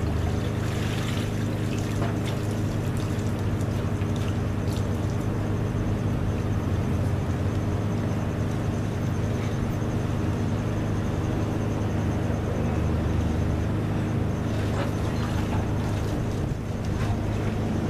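A motor runs with a steady low hum. Water sloshes and plastic sheeting rustles as a person stands up and climbs out of a water-filled, plastic-lined pickup bed, mostly near the start and again near the end.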